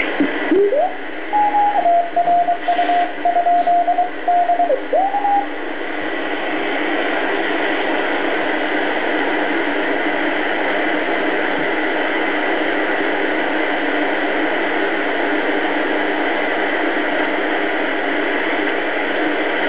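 A Philco-built BC-312G shortwave receiver is being tuned. For the first few seconds it plays a Morse code signal, a single steady tone keyed on and off, which swoops in pitch as the tuning passes over it. The signal then gives way to steady shortwave static hiss that lasts the rest of the time.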